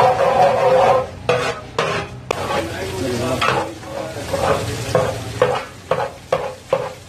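Ginger-garlic paste sizzling in hot oil in a large aluminium pot while a long-handled metal ladle stirs and scrapes it, sautéing. The sizzle is loudest for about the first second. Later the stirring comes through as regular scraping strokes, about two a second.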